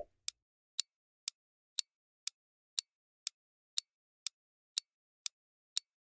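Countdown-timer clock-tick sound effect: short, sharp ticks at an even two per second, marking the seconds running out on a quiz question.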